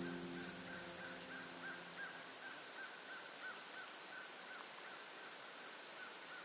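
Crickets and other insects chirping over a steady high trill, with short chirps repeating about twice a second. Sustained music notes fade out during the first two seconds.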